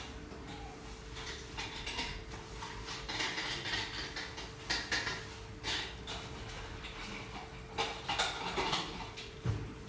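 Kitchen clatter: irregular light clicks and rattles, with a faint steady hum underneath.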